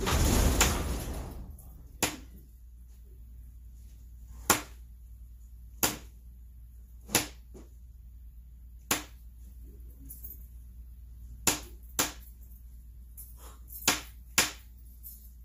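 About nine sharp taps of a punch struck to seat a Welch plug in a chainsaw carburetor, spaced unevenly one to two and a half seconds apart. It opens with a loud hiss lasting about a second and a half.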